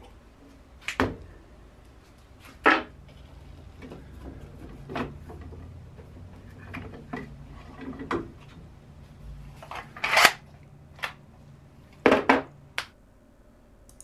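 Hand work on aluminium gantry parts and a steel bar clamp: a string of irregular sharp metal clanks, clicks and knocks, about a dozen in all, the loudest around ten and twelve seconds in.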